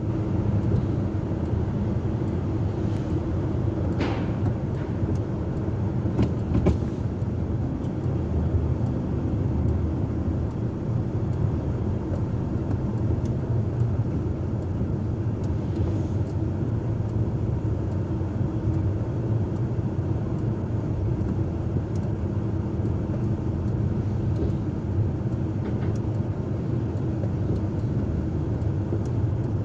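Heavy diesel engine running steadily at a constant speed, with a few faint clicks about four and seven seconds in.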